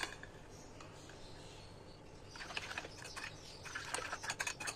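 A metal spoon stirring thick yogurt in a ceramic bowl, quiet at first, then a run of quick clicks and scrapes against the bowl from about two seconds in.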